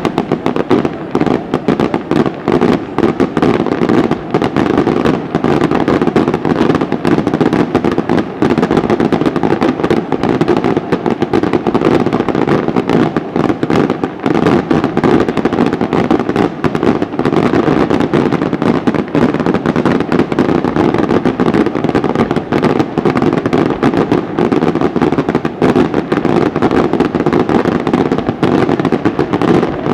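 Aerial firework shells bursting in a continuous barrage: dense, rapid bangs and crackle with no gaps.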